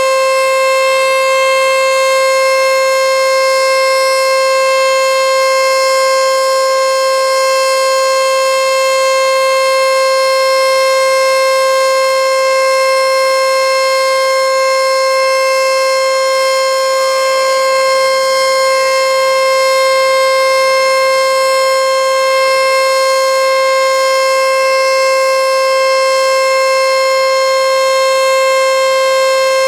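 Federal Signal outdoor warning siren sounding a loud, steady single tone with no rise or fall in pitch, the continuous alert signal of an annual nuclear-plant siren test.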